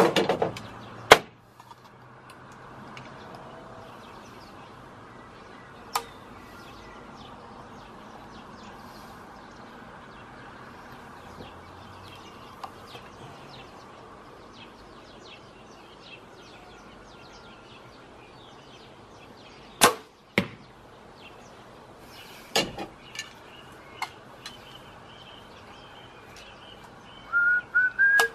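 Compound bow shot: a sharp snap of the string on release, followed about half a second later by the arrow striking the target. Lighter clicks and knocks of the bow and arrows being handled come before and after.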